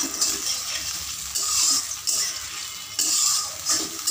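Ginger paste with a little water sizzling in hot oil in a kadai, a metal spatula stirring and scraping against the pan. The sizzle swells and fades several times as it is stirred.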